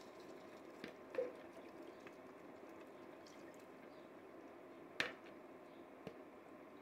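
Beef stock poured from a metal ladle into a pot, faintly splashing and dripping, with a few light clicks and one sharp click about five seconds in.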